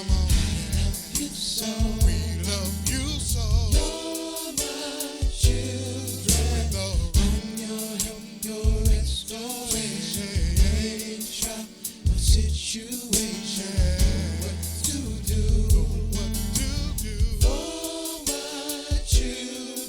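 Gospel song with a singing voice over a band of bass and drums, the melody wavering with vibrato.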